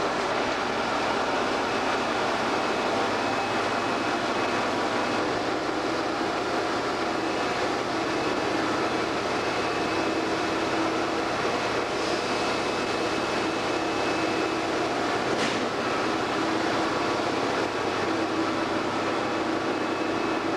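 Narrow-gauge Lxd2 diesel locomotive's engine idling steadily.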